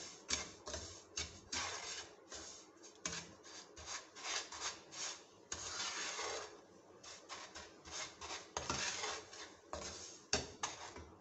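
Spatula scraping and stirring dry bread crumbs, ground almond and desiccated coconut around a non-stick frying pan as they dry-roast: repeated rasping strokes, with a sharp tap against the pan now and then.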